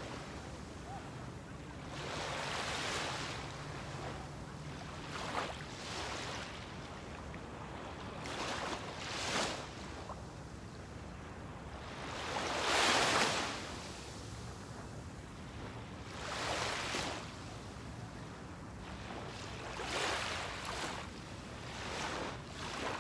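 Small waves lapping and washing up onto a sandy beach: a soft hiss that swells and fades every few seconds, the loudest wash about halfway through.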